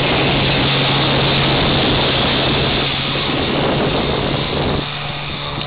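Mercury 110 10 hp outboard motor running steadily at speed as the inflatable dinghy passes close and heads away, over the rush of surf and splashing water. The sound drops off a little about five seconds in.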